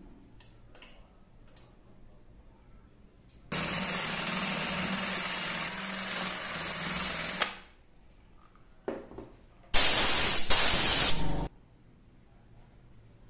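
Power drill with a Forstner bit boring into the wooden bowl's base, running steadily for about four seconds. About two seconds later comes a louder, harsher burst of noise lasting under two seconds.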